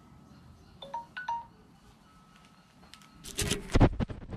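Wind chimes tinkling, a few short ringing notes at different pitches. A loud clatter of several sharp knocks comes a little over three seconds in.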